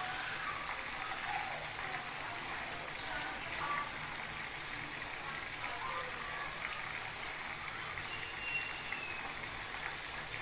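Beef kofta meatballs deep-frying in hot oil in a wok: a steady sizzling hiss with faint crackling.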